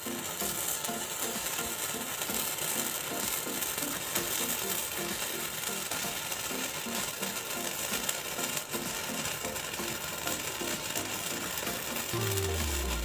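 A firecracker fizzing and crackling steadily for about twelve seconds, starting suddenly, over background music with a steady beat. Near the end a deep falling tone comes in.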